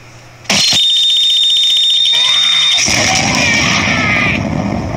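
A sudden loud blast about half a second in, followed by a high, steady, alarm-like tone for about two seconds, then a loud explosion with a rumble and a shouting voice over it, fading near the end.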